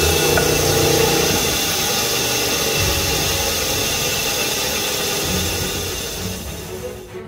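Band saw cutting through a wooden block, then running free after the cut ends about a second in. It fades out near the end.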